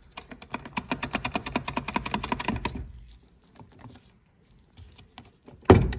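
Hand ratchet clicking rapidly, about ten clicks a second, for nearly three seconds as a starter bolt is turned, then a few scattered clicks and one loud thump near the end.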